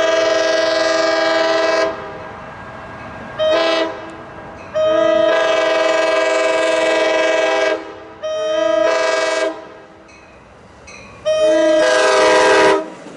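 Amtrak Pacific Surfliner train arriving, sounding its horn in a series of loud blasts: a long one, a short one, a long one, then two shorter ones, with train noise between.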